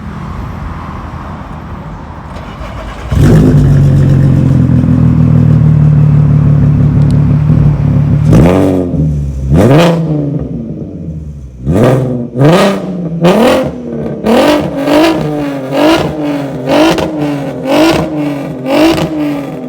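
Volkswagen Golf R32's 3.2-litre V6 engine being revved. It comes in suddenly much louder about three seconds in and holds a steady high note. From about eight seconds it is blipped again and again, each blip rising and falling in pitch, about one and a half a second near the end.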